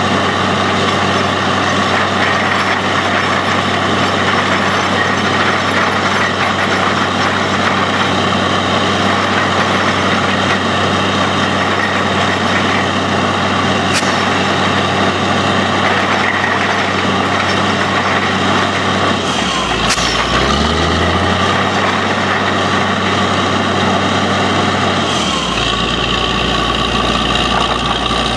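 Truck-mounted borewell drilling rig running steadily while drilling, its engine and machinery droning loudly. The engine note shifts and bends about two-thirds of the way through and changes again a few seconds later, with a couple of brief sharp clicks.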